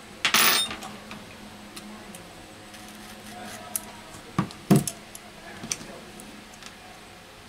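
Handling noises from a phone repair: a short scraping rustle about a third of a second in, then two sharp metal clicks around four and a half seconds in, with a few light ticks between. The sounds come from a metal scraper tool and the phone's metal mid-frame being handled while a thermal pad is lifted off.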